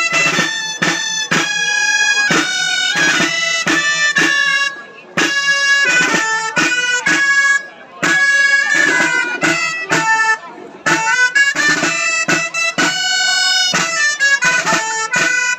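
Dolçaina (Valencian shawm) playing a traditional square-dance tune. The melody comes in phrases, with brief breaks between them.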